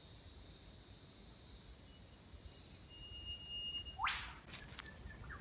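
Eastern whipbird calling: a thin whistled note held for about two seconds, then a sharp rising whip-crack near the end. A faint steady insect hum runs underneath.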